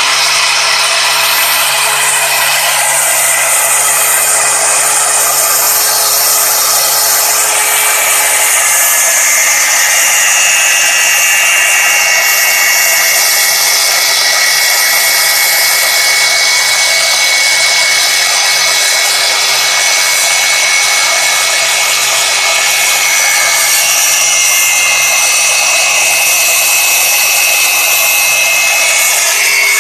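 Angle grinder with an abrasive cut-off disc, machine-fed by a CNC router, cutting into a metal vise. A steady, loud grinding with a high whine that wavers a little in pitch.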